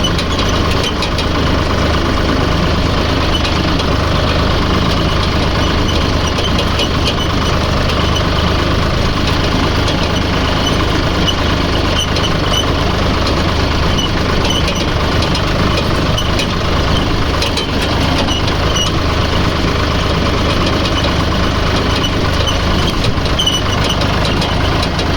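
An engine running steadily at a constant speed: a loud, even low hum that holds the same pitch throughout.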